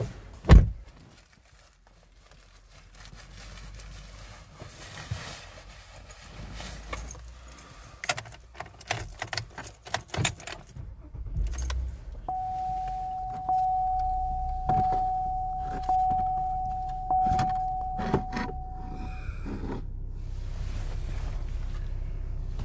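Car keys jangling and handling knocks as a person gets into a car, then the car's warning chime sounding as one steady tone re-struck about every second for about seven seconds. A steady low running noise follows it.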